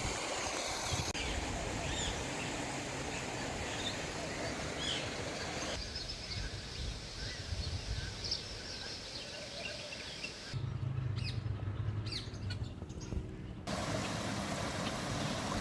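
Outdoor ambience with scattered short bird chirps over a steady background hiss, changing abruptly several times. A low steady hum comes in for a few seconds past the middle.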